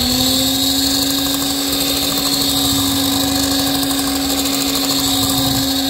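Electric hand mixer running at a steady speed, its twin beaters churning flour into chocolate cake batter in a steel bowl. The motor's hum rises in pitch just at the start, then holds one steady tone.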